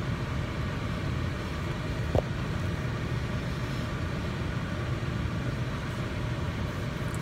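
Steady low hum of a car idling, heard from inside the cabin, with a single short click about two seconds in.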